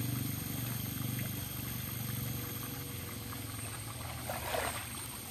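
Water pouring from a large pipe outlet and splashing into a pond, over a steady low mechanical hum.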